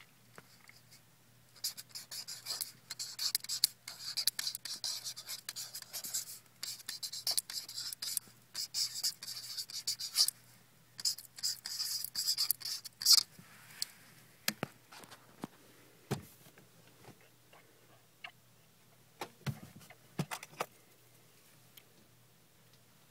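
Marker pen writing on a cardboard box: runs of quick scratchy strokes for about the first half, followed by a few scattered knocks and clicks.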